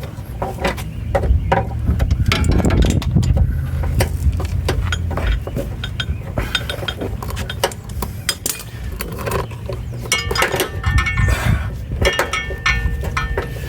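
Metal tools and brake hardware clinking and clicking irregularly as they are handled, with a few ringing metallic clinks about ten seconds in, over a steady low rumble.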